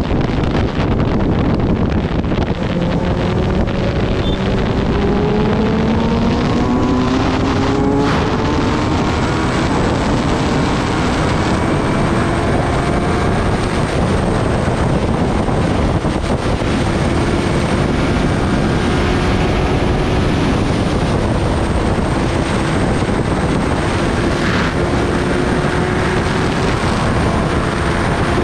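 Kawasaki Ninja ZX-10R's inline-four engine under way, rising in pitch over the first several seconds as the bike accelerates, then holding a steady pitch at cruising speed. Heavy wind noise on the microphone covers much of the engine.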